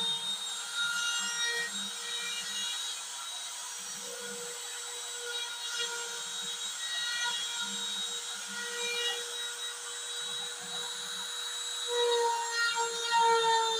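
Router spindle of a homemade CNC machine running at speed while its bit carves lettering into MDF board: a steady high whine over the rougher, uneven sound of the cut. It grows louder near the end.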